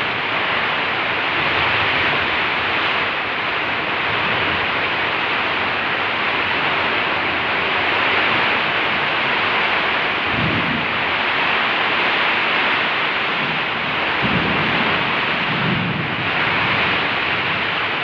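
Heavy rain falling, a steady dense hiss, with a low rumble swelling briefly about ten seconds in and again a few seconds later.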